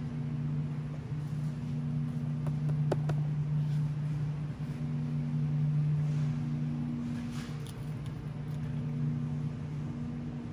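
Steady low mechanical hum of grocery-store machinery, dipping briefly a couple of times, with a few faint clicks about three seconds in.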